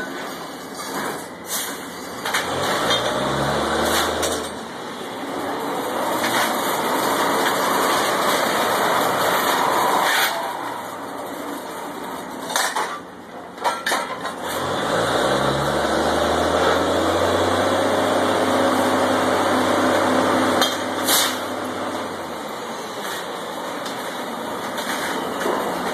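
Drilling rig engines running loud and steady, revving up twice, a couple of seconds in and again about 15 s in, the second time held for several seconds before easing off, as the drawworks moves the blocks while tripping pipe. Sharp clanks of steel tools and pipe on the rig floor sound now and then.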